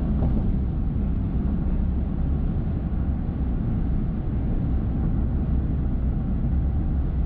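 Steady low rumble of a rental truck's engine and tyres heard from inside the cab while it drives at highway speed.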